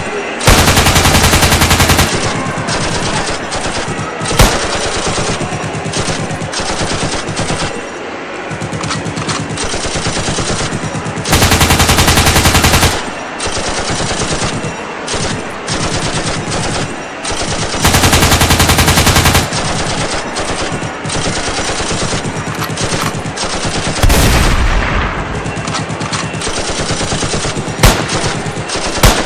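Continuous automatic gunfire, rapid shots without a break, with three louder long bursts of machine-gun fire (about half a second in, about eleven seconds in, and about eighteen seconds in) and a few single sharp shots between them.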